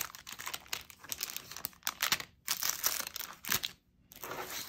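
Clear plastic packaging bags crinkling and rustling in irregular bursts as bagged silicone resin molds and craft supplies are slid around and laid out on a cutting mat, with a short pause about two-thirds of the way through.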